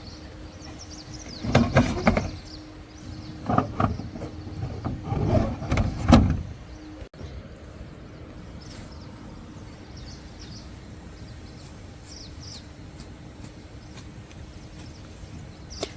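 A few loud knocks and clatters with rustling, like gear being handled or a door worked, then a steady low background hiss.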